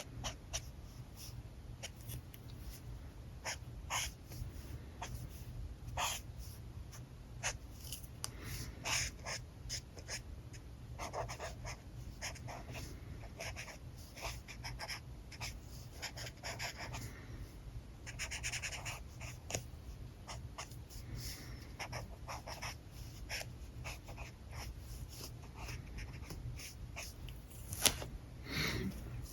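Alcohol marker tips stroking and scratching on paper in short, irregular strokes, mixed with scattered clicks and taps of markers being handled. A louder, sharp click comes near the end, over a steady low hum.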